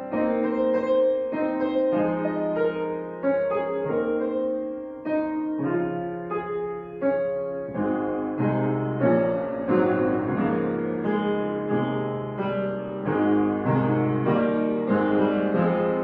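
Instrumental piano music: single notes and chords struck one after another.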